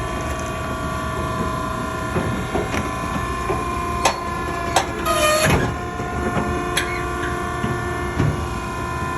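Maren hydraulic baler running with a steady, multi-tone hum, broken by scattered knocks and clanks. A short squeal of metal under pressure comes about five seconds in.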